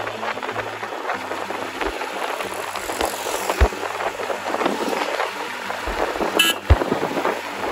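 Wind rushing and crackling on the microphone of a moving motorcycle, a Royal Enfield Himalayan, with its single-cylinder engine running underneath. A brief sharp tone cuts through about six and a half seconds in.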